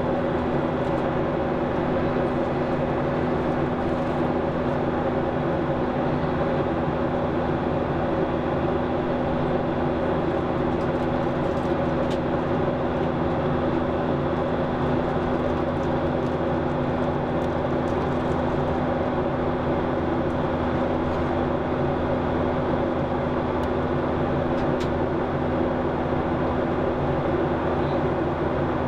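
Steady cabin noise of a Boeing 737-800 in flight: a constant rush of engine and airflow noise from its CFM56 turbofans, with a steady low hum.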